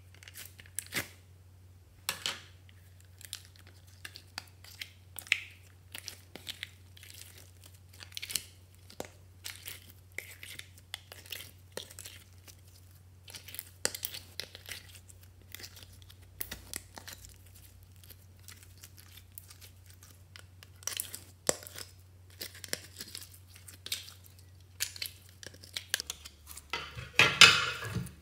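Clear glitter slime being pulled, stretched and scooped by hand out of a plastic compartment case: irregular sticky clicks and crackles. Near the end a louder, denser run of crackles comes as the slime is pressed into a glass bowl. A faint low hum runs underneath.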